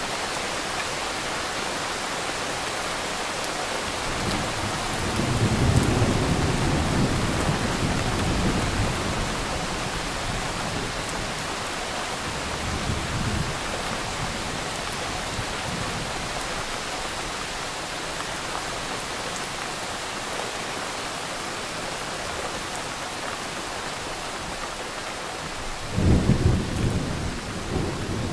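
Thunderstorm with steady rain and rolling thunder. A long rumble builds about five seconds in, a fainter one comes near the middle, and a sharper, louder thunderclap hits near the end.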